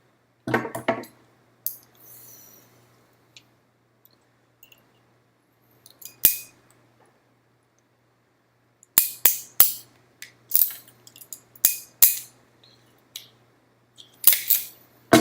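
Sharp snips and clicks of a crimping tool's cutter trimming the ends of straightened cat5 wires, with handling clicks in between. They come singly at first, then in a quick run about two thirds of the way through, and the loudest pair falls near the end.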